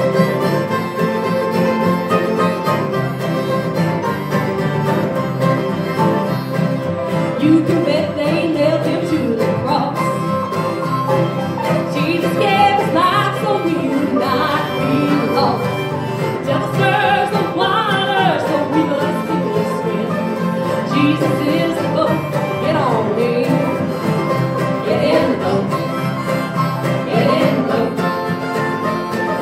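A live bluegrass string band playing, with acoustic guitars and mandolin, and voices singing from about a quarter of the way in.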